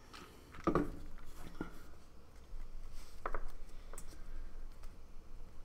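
A stack of Panini Prizm trading cards being handled on a table: a few short rustles and taps, the loudest under a second in.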